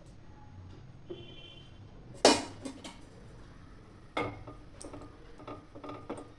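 Metal utensils clinking and knocking against a kadhai as ghee is spooned in. There is one loud clank a little over two seconds in, then a few lighter knocks and clinks.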